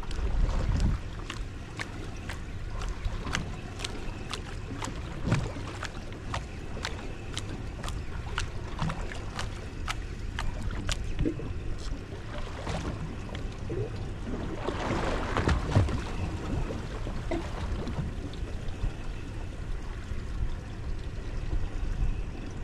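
Water lapping and slapping against the hull of a drifting fishing boat, with many sharp, irregular clicks and ticks. A low rumble of wind on the microphone in the first second, and a rougher splashing swell of noise about two-thirds of the way through.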